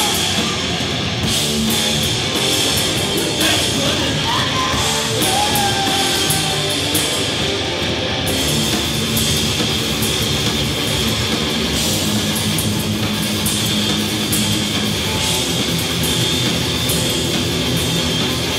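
Live heavy rock band playing loudly: electric guitar over a drum kit.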